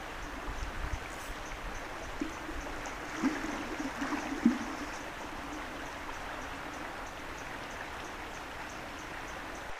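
Tailwater river flowing steadily, with a few brief louder knocks or splashes about two to four and a half seconds in.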